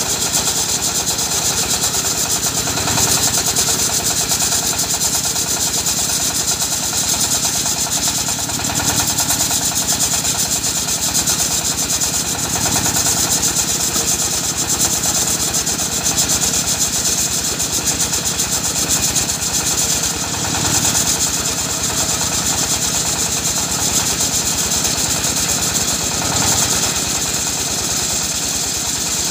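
Portable circular sawmill driven by a single-cylinder diesel engine, running steadily while its blade rips a large teak beam. A high cutting hiss rides over the engine's rapid firing, swelling several times as the log is pushed through.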